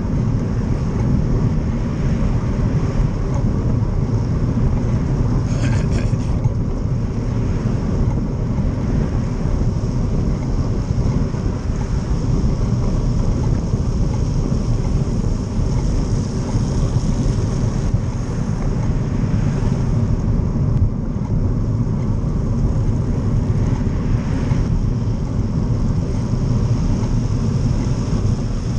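Steady low rumble of wind buffeting the microphone of a camera riding along on a moving bicycle, mixed with road noise from the wet street and the traffic ahead.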